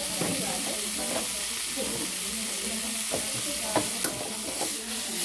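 Tomato and bell pepper pieces sizzling in a hot stainless steel pan, a steady frying hiss. A few sharp metal clinks of the utensils come in the second half.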